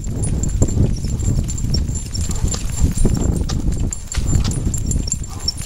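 Two Portuguese water dogs trotting in harness, pulling a mini dog sulky over pavement: a quick patter of paws and clicking nails with small jingle bells tinkling, over a steady low rumble of the rolling cart.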